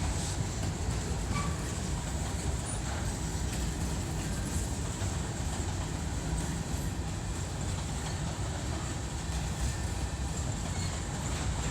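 Empty grain train's cars rolling past: a steady rumble of steel wheels on the rails, with a few faint, brief wheel squeals.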